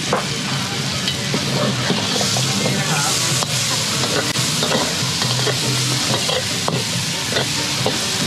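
Noodles sizzling in a hot wok while a metal spatula stirs and scrapes them, with frequent sharp clinks of the spatula against the wok.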